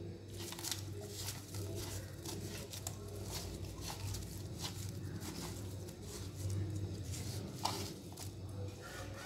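A hand squishing and rubbing spice masala into raw fish steaks in a pan, with irregular wet squelches and clicks. A steady low hum runs underneath.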